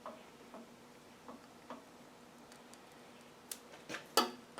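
Faint, scattered small clicks and ticks, about seven over four seconds with the loudest near the end, as a plastic gear knob is pressed down onto a heated nut.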